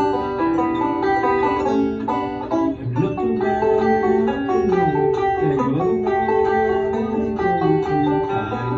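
Plucked-string guitar music: a run of picked notes over a moving bass line, with no singing.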